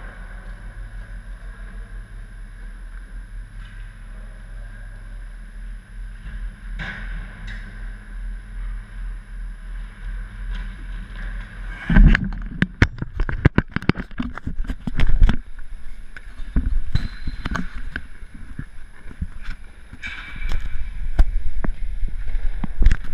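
Steady hum of a large indoor ice rink with faint distant skating and stick clicks. About halfway through come a run of loud knocks, scrapes and rattles as the camera is grabbed off the goal and handled.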